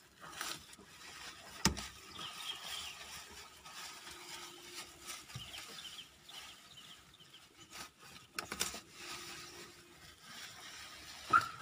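Plastic protective wrap rustling and crinkling as it is handled and pulled off a new car seat and headrest, with a few sharp clicks.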